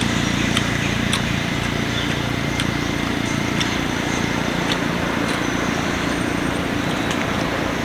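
Steady rumble of a motor vehicle, engine and road noise, with faint light clicks every second or so.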